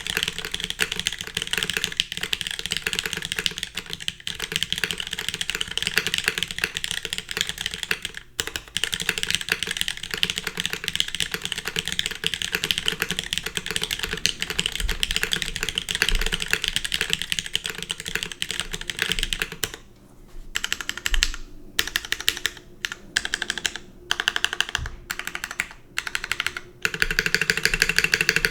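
Typing on a custom mechanical keyboard with polished, lubed MX Black linear switches on a full aluminium plate, with DCS keycaps. Fast, continuous keystrokes give way about two-thirds of the way through to slower, separate key presses with short pauses, then fast typing resumes near the end.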